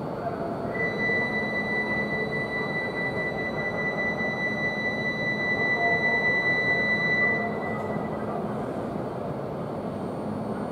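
E5 series Shinkansen train at the platform as it gets ready to pull out: a steady rumble and hum. From about a second in to about seven seconds, a steady high electronic tone sounds over it, then stops.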